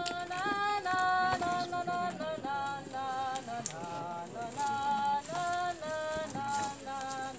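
Hungarian folk tune in a high register accompanying the women's dance group: a single melody line of held notes that moves up and down in steps, each note lasting about half a second.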